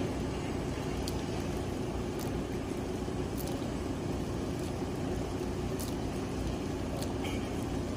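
Steady low rumble and an even hiss of water spray from a two-arm rotating lawn sprinkler running, with faint ticks about once a second.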